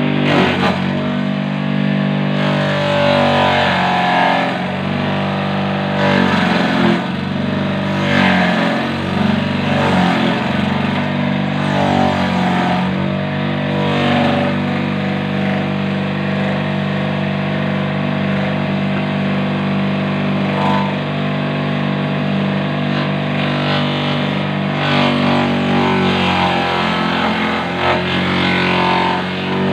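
The electric motor of a used water pump runs a homemade banana-stem chopper with a steady hum. Each time a banana-stem sheath is pushed in, the hum sags and the blades give a rasping shredding noise, several times over.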